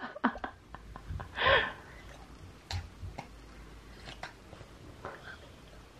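A young child eating a melon ice pop: scattered wet lip smacks and sucking clicks, with a short breathy sound about one and a half seconds in and another near the end.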